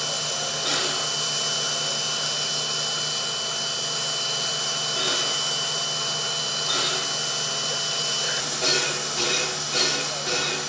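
Steam hissing steadily from standing steam locomotive NM25, with a thin steady high tone over it. About eight seconds in the tone stops and the hiss turns to an uneven pulsing of a few beats a second.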